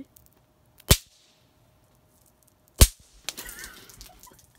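Two sharp bangs from a small firework, about two seconds apart, the first trailed by a short hiss.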